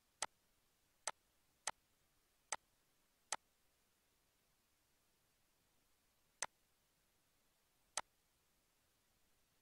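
Computer mouse button clicks over near silence: seven sharp single clicks. Five come in quick succession in the first three and a half seconds, then two more about three and four and a half seconds later.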